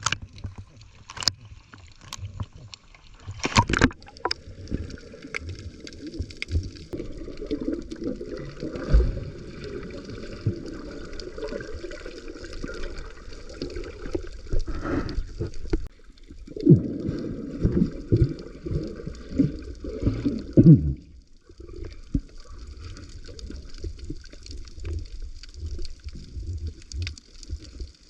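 Underwater sound picked up by a camera in its housing: muffled water movement and gurgling, with many scattered sharp clicks and crackles.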